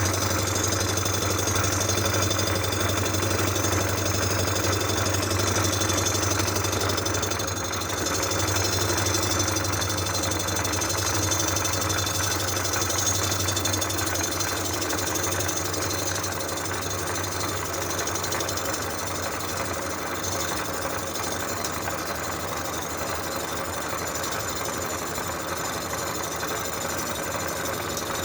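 Cylinder head surfacing machine running steadily as it skims the rusty exhaust-side face of an Oldsmobile V8 cylinder head, a constant low hum with a thin high whine, a little quieter in the second half.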